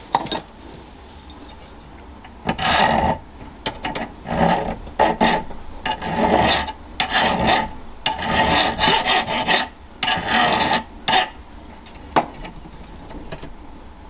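Flat hand file scraping the cut end of a length of model railway rail held in a small filing jig: a run of uneven back-and-forth strokes lasting about nine seconds, starting a couple of seconds in. A sharp click comes right at the start and another near the end.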